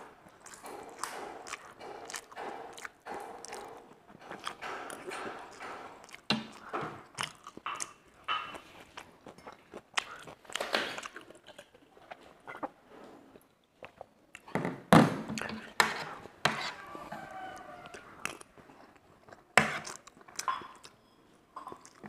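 Close eating sounds: chewing, with frequent short clicks and scrapes of a metal fork against a ceramic plate. The loudest is a single sharp knock about two-thirds of the way through.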